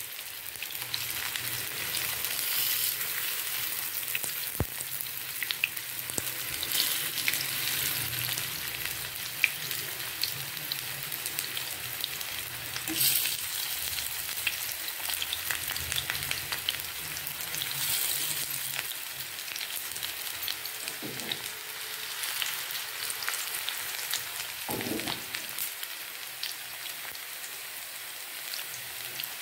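Spice-and-gram-flour-coated raw banana slices shallow-frying in oil in a pan: a steady sizzle with scattered crackles and pops.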